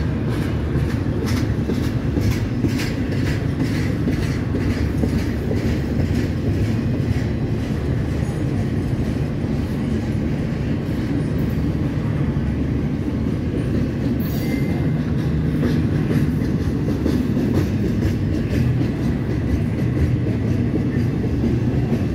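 Double-stack intermodal well cars of a freight train rolling past at low speed: a steady heavy rumble of steel wheels on rail. Over roughly the first eight seconds the wheels click regularly over the rail joints.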